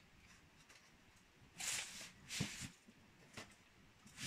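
Box cutter slicing through the packing tape and cardboard of a shipping box: a few short, scratchy cutting strokes, the loudest two about two seconds in.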